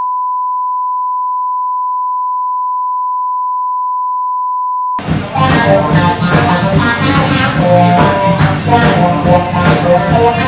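A steady line-up test tone at one unchanging pitch, the kind that runs with colour bars at the head of a broadcast tape. About halfway through it cuts off and music with a steady beat starts.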